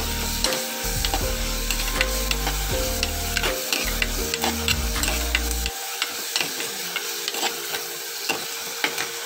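Sliced tomatoes and onions sizzling in hot oil in a clay pot while a wooden spoon stirs them, its strokes scraping and clicking against the pot.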